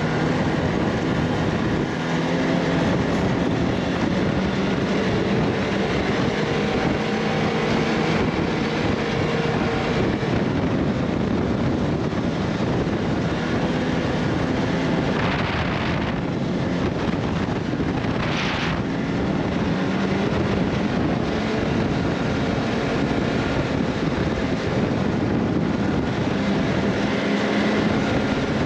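A vehicle's engine running steadily while on the move, with wind noise on the microphone. Two brief bursts of hiss come a little past halfway.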